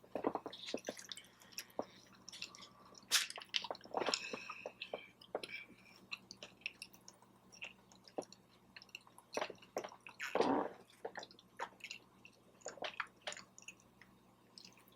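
Close-up chewing of food, with wet smacking and scattered soft mouth clicks.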